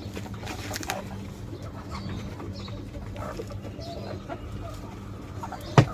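Chickens clucking and cooing softly over a steady low hum, with a single sharp knock near the end.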